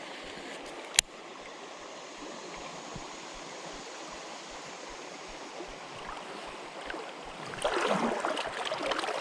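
Creek water running steadily, with one sharp click about a second in and louder, choppy noise in the last second and a half.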